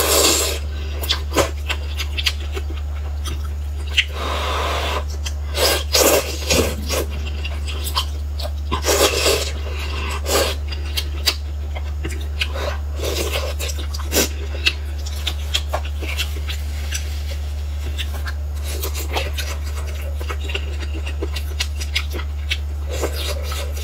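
Mukbang eating sounds from noodles in soup: slurping and chewing in short noisy bursts with scattered sharp clicks of chopsticks and mouth, busier in the first half. A steady low hum runs underneath.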